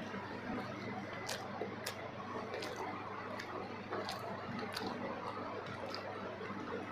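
A person chewing soft food close to the microphone, with wet mouth clicks about every two-thirds of a second.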